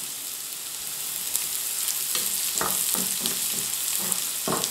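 Sliced onions and red pepper sizzling in oil and butter in a frying pan, with a spatula stirring them and knocking against the pan a few times.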